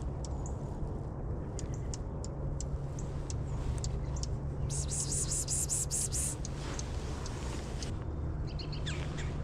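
Small birds calling with short, high chip notes scattered through, and a quick run of about eight loud, hissy high notes about five seconds in.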